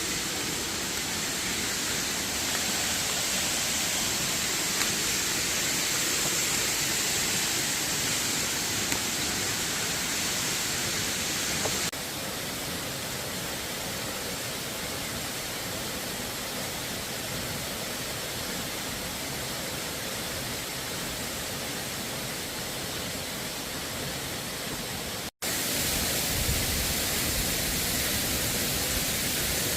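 Steady rushing of a waterfall, an even wash of water noise. It drops slightly in level about twelve seconds in and cuts out for an instant near twenty-five seconds.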